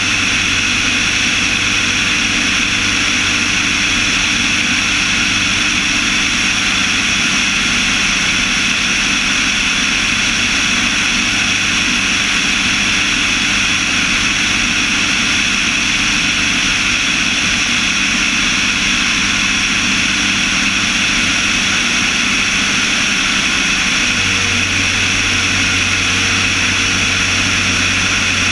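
Light propeller aircraft's engine and propeller running steadily in cruise, picked up by a camera mounted on the airframe along with the rush of the airflow. A low hum within the engine sound fades a few seconds in and comes back strongly near the end.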